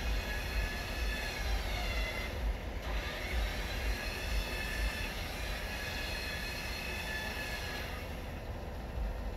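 WARN VR EVO 10-S 12 V electric winch motor whining under load as it pulls a car in. It cuts out briefly about two seconds in, pitch dropping, then starts again rising and runs until it stops near the end.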